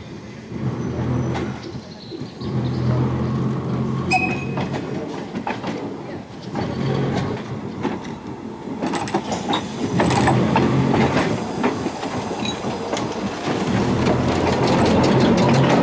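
Hudson & Manhattan subway car 503 approaching and rolling past, its wheels clicking over the rail joints and getting louder, with a rising whine near the end.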